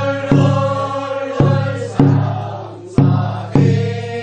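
Korean rice-paddy weeding work song (non-maeneun sori) for the second weeding: voices chanting a long held note while a hand drum is struck about five times, roughly once a second.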